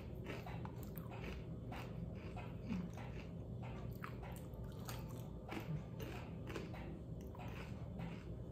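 Tikka masala corn chips being bitten and chewed: a run of small, irregular crunches.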